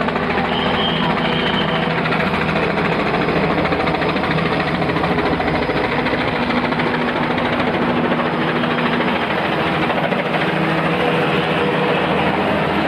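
Helicopter flying overhead, its rotor and engine running steadily and loudly.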